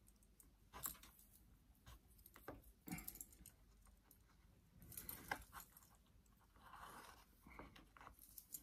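Faint, scattered clicks and crackles with soft rustling as bonsai wire is handled and wrapped onto the branches of a young yew tree.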